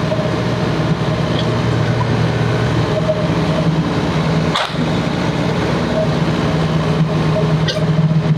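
Excavator's diesel engine running steadily, a low hum, with brief sharp clicks about halfway through and near the end.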